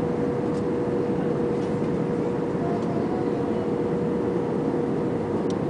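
Airbus A320 cabin noise during descent: steady engine and airflow noise with a constant mid-pitched hum, heard from a seat over the wing.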